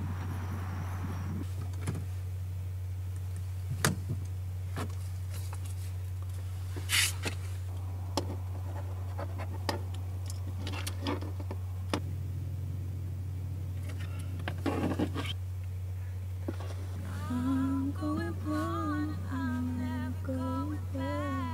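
Sparse intro of a music video: a steady low hum under scattered soft clicks and short rustling noises. About three-quarters of the way in, a wordless voice starts humming a slow stepped melody.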